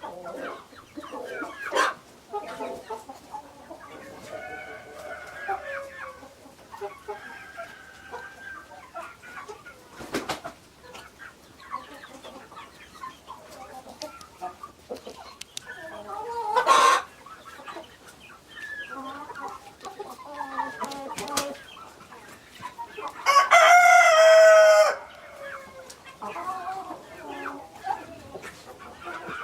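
Chickens clucking on and off, with a rooster crowing once loudly, about a second and a half long, a little over three quarters of the way through.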